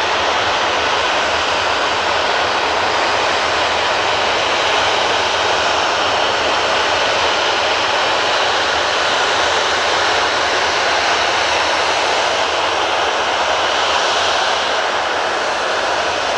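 Boeing 737-800's CFM56-7B turbofan engines running steadily at low taxi power as the jet rolls slowly past on a wet surface.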